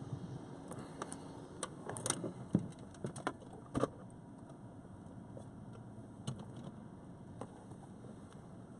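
A person climbing into a car's driver's seat: a cluster of clicks and knocks with camera-handling noise over the first four seconds, then a few scattered clicks, over a steady low hum.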